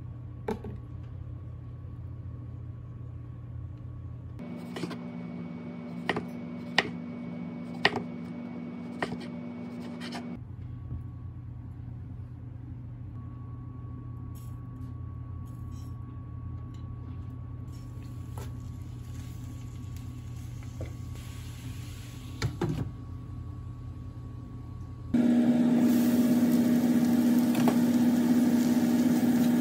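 Kitchen cooking sounds: a low steady hum with a handful of sharp knocks against a cutting board during knife prep. Near the end it jumps to a loud steady hum and hiss from the stovetop as shredded greens steam and cook in a hot skillet.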